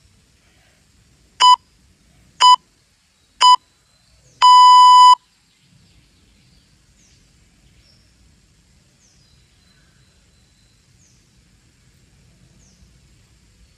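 Workout interval timer beeping: three short, high beeps a second apart, then one longer beep, as the countdown reaches zero and the interval changes.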